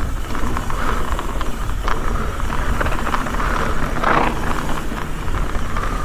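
Ibis Ripmo mountain bike descending fast on a dusty dirt trail: wind rushing over the handlebar camera's microphone, along with the steady rolling noise of the knobby tyres on dirt. The noise swells briefly about four seconds in.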